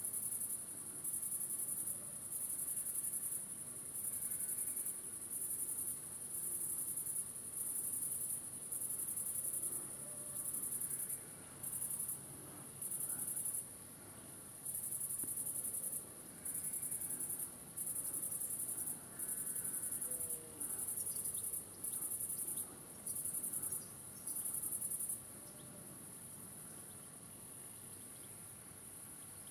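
Meadow insects stridulating in a very high-pitched buzzing song, in bursts about a second long with short gaps between them. Near the end the bursts give way to a steadier, quieter trill.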